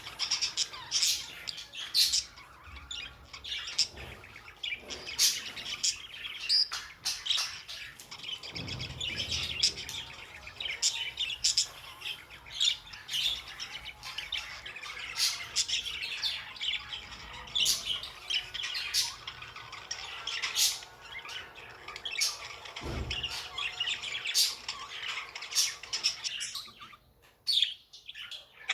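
Budgerigars chirping and chattering nonstop, with many sharp, high calls over a steady warble.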